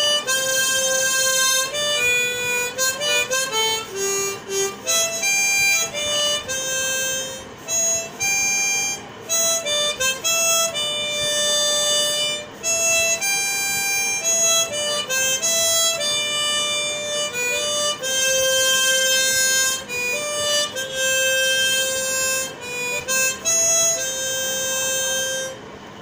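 Harmonica playing a single-line melody, one held note after another with short breaks between phrases, stopping just before the end.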